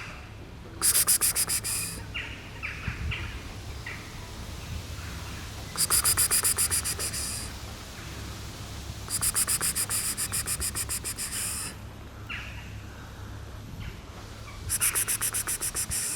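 Insect trilling in four loud bursts of rapid, high-pitched pulses, each one to two and a half seconds long, with faint short chirps between them.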